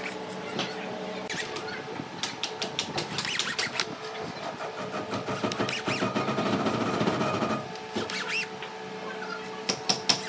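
Corded electric drill boring into a hardwood board, with one longer run about halfway through that stops near three-quarters of the way, amid scattered clicks and knocks over a steady low hum.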